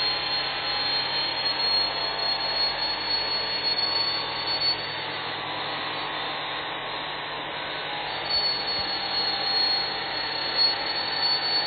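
Power grinder running steadily as it grinds into a metal bar, throwing sparks. It eases off a little about halfway through and bites in again after about eight seconds.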